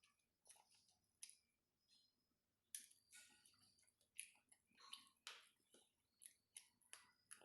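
Faint, close-miked eating of chicken curry and rice: an irregular run of short wet mouth clicks and smacks from chewing.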